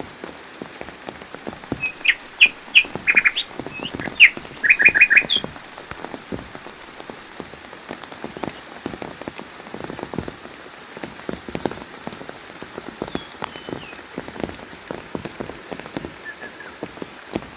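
Steady rain pattering and dripping, with a bird chirping a quick series of short, high notes from about two seconds in to about five seconds in. A few faint calls come later.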